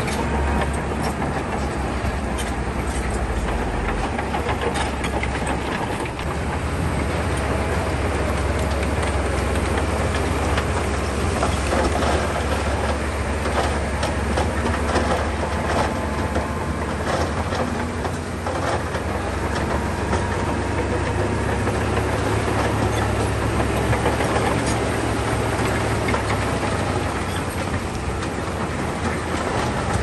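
Bulldozer at work: a steady, deep diesel engine note under an irregular clatter of steel tracks and loose stone.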